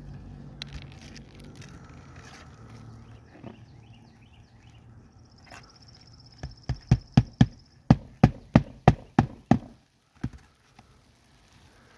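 A hammer striking a flat pry bar to drive it under an asphalt roof shingle and lift it: about a dozen sharp metal knocks at roughly three a second, past the middle, then one more after a short pause.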